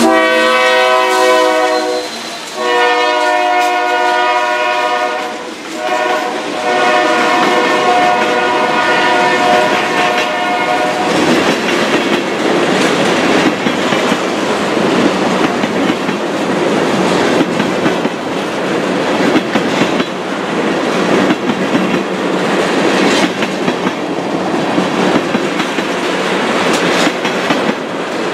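A passing Union Pacific freight train: the locomotive horn sounds a chord in three blasts, the last and longest ending about eleven seconds in, over the rumble of the locomotives. Then the tank cars roll by with a steady clickety-clack of wheels over rail joints.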